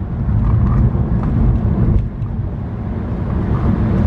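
Steady low rumble of road and engine noise from a car cruising on the freeway, heard from inside the cabin.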